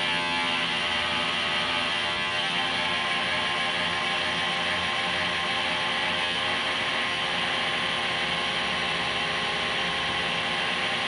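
Lissajous curve maker running with a steady mechanical whir and hum over a hiss; its pitch wavers slightly in the first couple of seconds, then holds.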